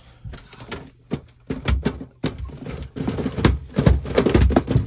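A rapid, irregular string of sharp clicks and knocks with dull low thumps, growing busier and louder about halfway through.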